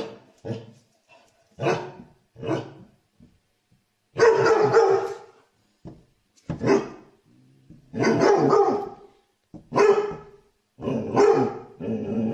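Small black dog barking in a run of about nine barks, some short and sharp, and three drawn out to about a second each.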